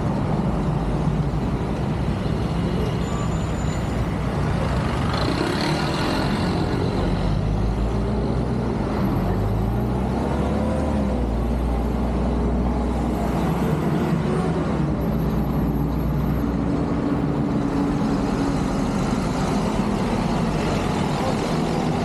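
City street traffic: buses and cars driving past, with heavy diesel bus engines loudest in the middle stretch.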